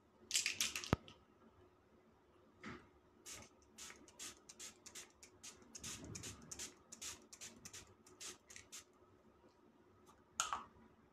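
Fine-mist pump bottle of glitter-shimmer makeup setting spray being spritzed over and over: some twenty short, sharp hisses, roughly three a second, over about six seconds. Near the start there is a short rustle ending in a sharp click, and one more short burst near the end.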